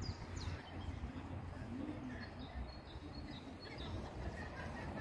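Outdoor ambience of small birds chirping, a few quick falling chirps at the start and fainter ones later, over a steady low rumble.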